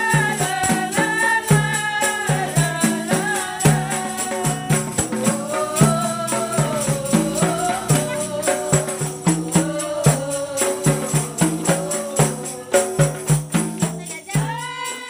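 Qasidah rebana music: a woman singing a melodic line over rebana frame drums beating a steady rhythm. The music begins to fade near the end.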